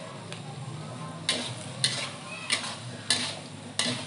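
Five sharp clacks of a kitchen utensil striking a hard surface, about two-thirds of a second apart, over a low steady hum.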